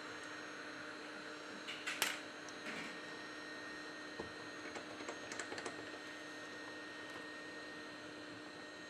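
Faint, scattered small clicks and taps from tools and parts being handled during a smartphone disassembly, over a steady low electrical hum.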